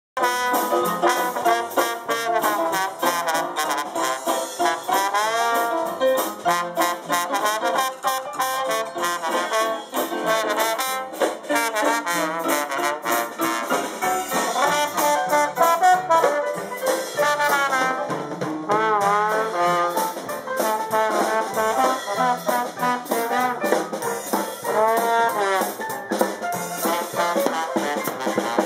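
Dixieland jazz band playing live: horns carry a sliding melody over banjo, upright bass and drum kit keeping a steady beat.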